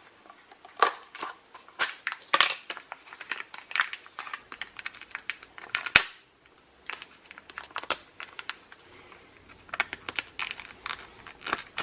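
Irregular crinkling and rustling of packaging being handled, with scattered clicks and knocks and one sharp click about halfway through.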